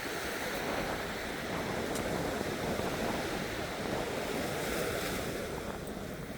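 Sea waves washing on a beach: a steady rush of surf that eases slightly near the end.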